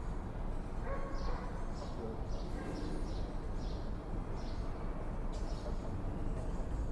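Swallows twittering in a run of short, high chirps, with a few lower calls mixed in, over a steady low background rumble.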